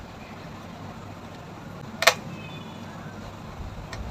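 A screwdriver backs screws out of a home theatre unit's back panel: quiet handling over a low steady hum, with one sharp click about halfway through and a fainter click near the end.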